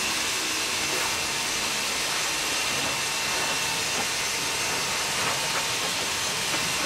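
Garden hose spray nozzle jetting water onto a car's bodywork: a steady hiss of spray and spatter.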